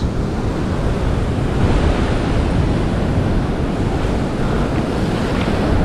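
Ocean surf washing steadily against a lava-rock shoreline, with wind rumbling on the microphone.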